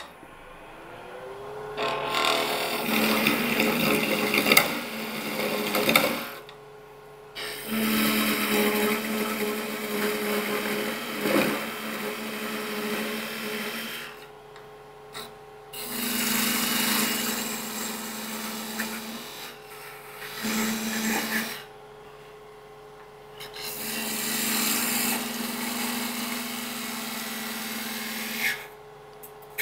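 A wood lathe whirs up to speed, then holds a steady hum. Over it, a parting tool cuts sizing grooves into the spinning wooden mallet blank, checked against calipers, in five scraping stretches of a few seconds each with short pauses between.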